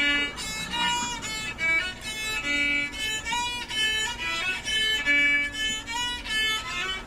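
Violin playing a melody as a quick run of separate notes, some sliding slightly into pitch.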